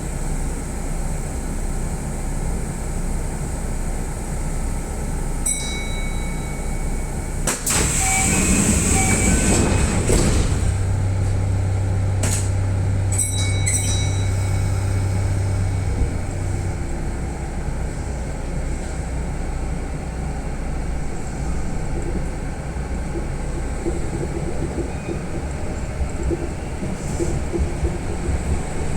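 Kintetsu electric commuter train setting off and running along the line, a steady rumble of wheels and motors. About eight seconds in, a louder rushing noise lasts a couple of seconds. A steady low hum follows and fades out near the middle, with a few sharp clicks along the way.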